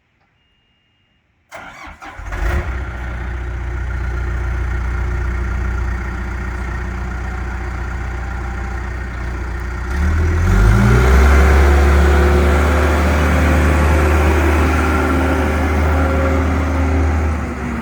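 John Deere 315SG backhoe loader's diesel engine starting about a second and a half in and settling into a steady idle. About ten seconds in it is throttled up to a higher, louder, steady speed, then drops back down near the end.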